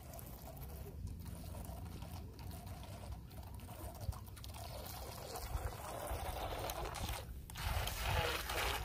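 Small waves lapping and trickling at a pebbly lake shore, then a louder rush of splashing for the last second or so as a toy RC jet ski comes in close, throwing up spray.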